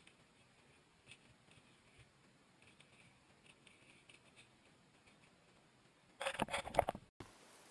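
Faint scattered ticks and rustles, then about a second of loud crinkling and rustling handling noise about six seconds in that cuts off abruptly.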